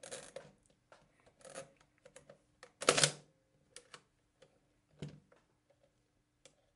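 Sharp mechanical clicks and snaps from the shutter mechanism of a Houghton Ensign Reflex camera being worked by hand, the loudest a short clatter about three seconds in, with softer clicks and rubbing before and after.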